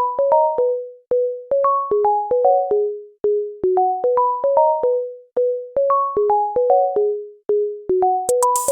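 Instrumental intro of a hyperpop rap beat: a simple melody of short plucked synth-keyboard notes, repeating a phrase about every four seconds. A drum-machine beat with hi-hats comes in near the end.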